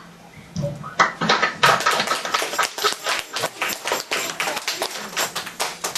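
A group of children applauding. The clapping starts about a second in and carries on as a dense patter.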